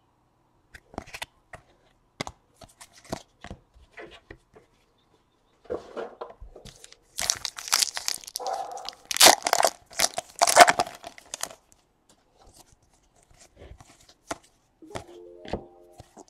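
Trading-card pack wrappers being torn open and crinkled, with light clicks and rustles of cards being handled. The loudest tearing comes in several sharp bursts in the middle.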